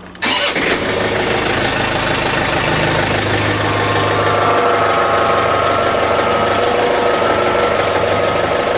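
John Deere 110 TLB's three-cylinder diesel engine coming in abruptly just after the start, then running steadily while the tractor is moved into position.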